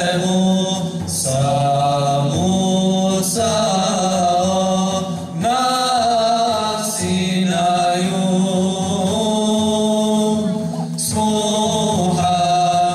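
Men's voices singing a Bosnian ilahija, an Islamic devotional song, in long, drawn-out melodic phrases with brief breaks between them.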